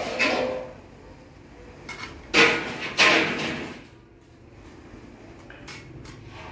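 Fired clay bricks knocking together as they are handled and set on a wall: two sharp, ringing clinks about two and a half and three seconds in, then a few faint taps.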